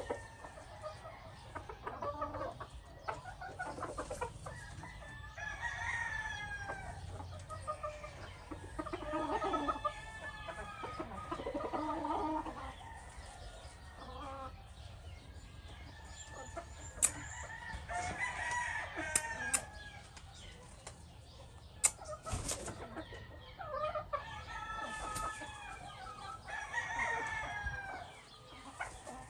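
Chickens clucking with repeated calls, and a rooster crowing among them, with a few sharp clicks in the second half.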